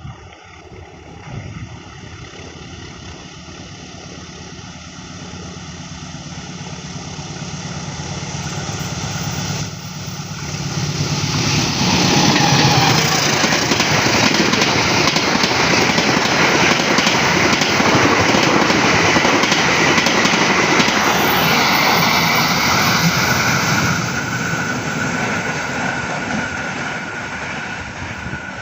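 A train approaching and passing close by: a steadily rising engine drone, then a loud steady rush for about twelve seconds as it goes past, fading near the end.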